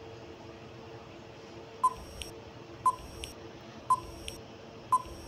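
Countdown timer sound effect: four short beeps at about one a second, starting about two seconds in, each followed by a fainter click.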